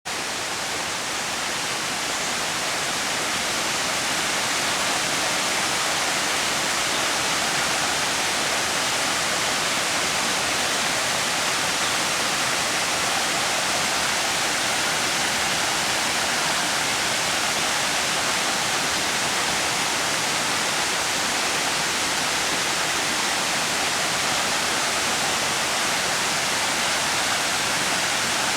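Hillside waterfall: a steady rush of falling, splashing water, growing a little louder over the first few seconds.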